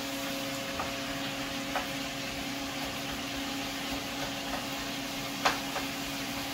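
Shrimp, onion and celery frying in oil in a pan: a steady sizzle over a steady low hum, with a few light knocks of a wooden spoon on the pan as it is stirred, the loudest about five and a half seconds in.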